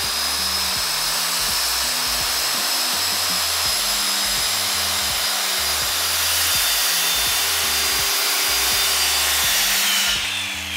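Circular saw running at full speed through a freehand cut in wood, a steady high blade whine over the noise of the cut. About ten seconds in the trigger is released and the blade winds down with a falling whine.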